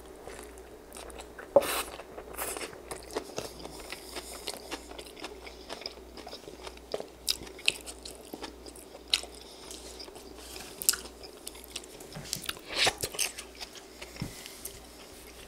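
A person biting and chewing a stuffed pita wrap close to the microphone: irregular wet, crunchy clicks and smacks, the loudest about one and a half seconds in and another cluster near the end.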